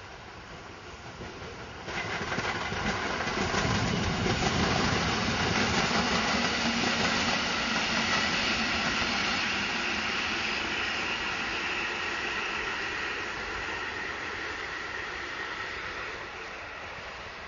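Electric multiple unit passenger train passing by on the rails. The noise jumps up about two seconds in, is loudest for a few seconds with some steady high tones running through it, then slowly fades as the train moves away.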